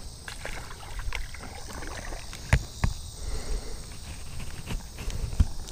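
Light water sloshing and handling knocks as a hand-held largemouth bass is lowered into shallow water for release, over a low rumble; a few sharp knocks stand out, about two and a half, three and five and a half seconds in.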